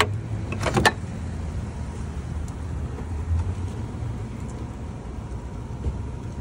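Tesla Supercharger handle with its Magic Dock CCS adapter being pulled from the dock: a sharp click, then a quick run of plastic clicks and clunks within the first second. A steady low rumble continues underneath.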